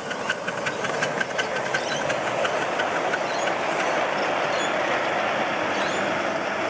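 Ride-on live steam model locomotive passing close by, with a quick, even rhythm of sharp beats that fades after about three seconds into the steady sound of its riding wagons rolling along the rails.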